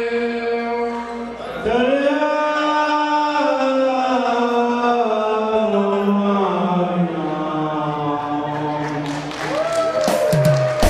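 A man chanting unaccompanied, holding long notes that rise at the start of each phrase and then slowly sink. Near the end, sharp taps begin.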